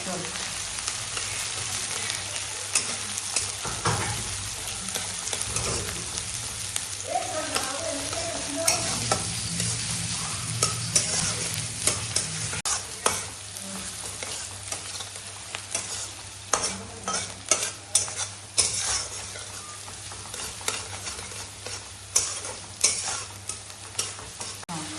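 Desi chicken curry sizzling and frying in a pan with a steady hiss, stirred with a utensil scraping and knocking against the pan. The scrapes come thicker in the second half.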